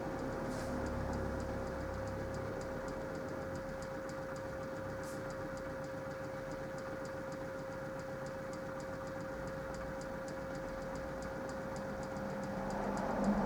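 Minicolo mini washing machine running mid-wash: a steady hum with a faint, fast, regular ticking. It grows louder near the end as a lower motor hum comes in.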